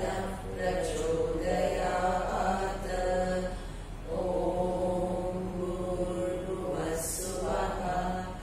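A woman's solo voice chanting a Sanskrit verse in long held notes, pausing briefly for breath about four seconds in.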